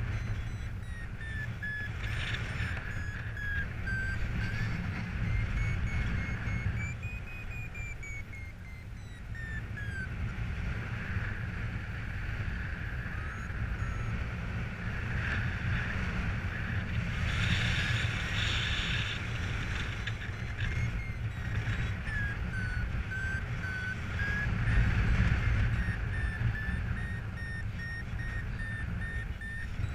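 Paraglider variometer beeping, its pitch slowly rising and falling with the rate of climb, over wind rushing on the microphone. The wind noise swells about two-thirds of the way through.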